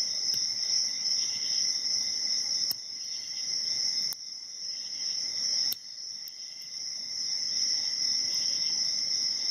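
A steady, high-pitched insect chorus of crickets runs throughout. A few faint, sharp clicks come from a hook pick working the pins in a padlock's keyway.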